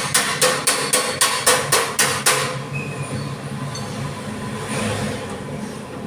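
Rapid metal-finishing hammer blows on a car body panel's sheet steel, about four a second, which stop about two seconds in, leaving a quieter steady background.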